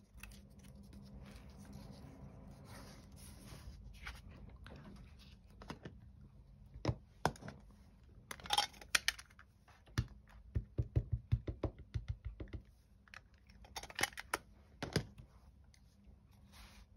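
Handling noises on a craft cutting mat: scattered clicks and light knocks of paper pieces and a clear acrylic stamp block being picked up and set down. About ten seconds in comes a run of quick soft taps, several a second for about two seconds, as the script stamp is tapped onto an ink pad.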